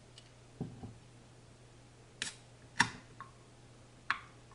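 Drink containers being handled and set down on a table: two soft low knocks about half a second in, then a few sharp clicks spread over the next couple of seconds, the loudest near the middle.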